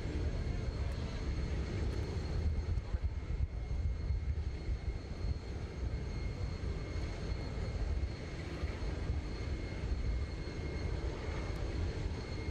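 Parked Boeing 747-400 jet airliner running: a steady high whine over a low rumble.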